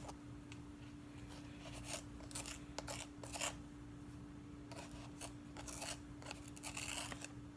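Slime being stirred and mixed in a container: a run of short, irregular strokes over a steady low hum.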